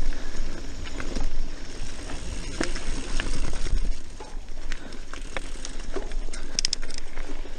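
Mountain bike riding fast over dirt singletrack: tyres rolling on packed dirt and leaves, with sharp rattles and knocks from the bike over bumps and a low wind rumble on the microphone. A brief high chirp sounds near the end.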